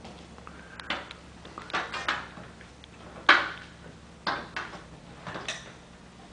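A run of sharp knocks and clatters from a worker handling foam blocks on an aluminium stepladder while fitting them into a ceiling bulkhead opening, the loudest about three seconds in.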